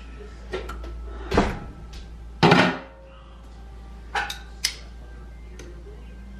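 Kitchen handling clatter: a glass slow-cooker lid set down with a clunk and a short ringing rattle about two and a half seconds in, the loudest sound, after a couple of lighter knocks. Near the end come two quick clicks as metal tongs are picked up from a metal pan.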